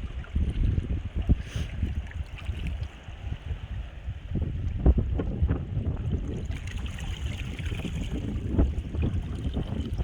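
Wind buffeting the microphone in irregular gusts over the wash of sea waves.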